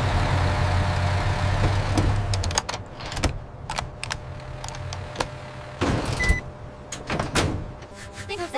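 A low motor rumble for about the first two and a half seconds, then a scattered series of sharp clicks and knocks, with a brief high beep about six seconds in.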